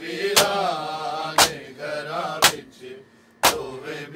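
Chest-beating matam: a group of men striking their bare chests with open palms in unison, four sharp slaps about a second apart. Between the strikes, male voices chant a lament.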